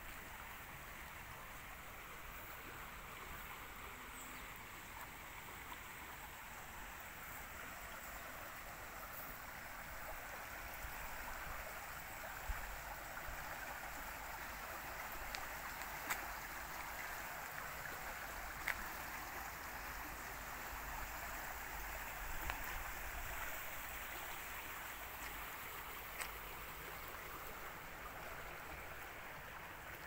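A small brook rushing steadily under a footbridge, its noise swelling through the middle and easing towards the end. A few light clicks stand out over it.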